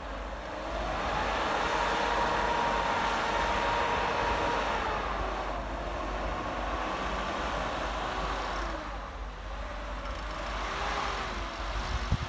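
Mitsubishi L200 pickup's engine revving as it drives and turns through deep snow, its pitch rising and falling with the throttle. It is loudest in the first few seconds, eases off, and revs up again near the end, where there is a short knock.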